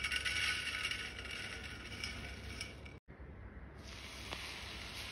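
Tiny dried shrimp (jawla) pattering and rattling onto a steel plate. After a short gap, hot spiced oil tempering is poured over the dried-shrimp mix and sizzles with an even hiss.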